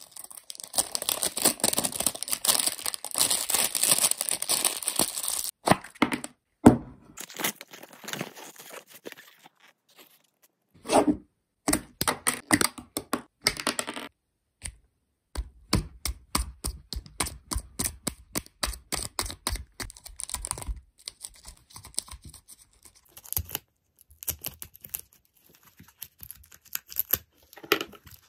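Foil wrapping of a toy box being torn and crinkled for about five seconds, followed by scattered crackles, clicks and a knock as plastic packaging and toy parts are pulled apart and handled.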